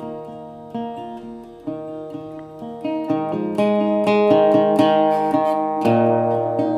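Instrumental acoustic guitar intro to a song: picked notes at first, growing fuller and louder about three seconds in.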